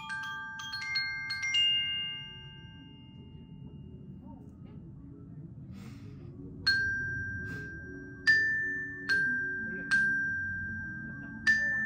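Yamaha glockenspiel played with mallets: a quick run of about six bright notes in the first second and a half, left ringing for a couple of seconds, then after a pause, slow single notes struck about once a second, each ringing on.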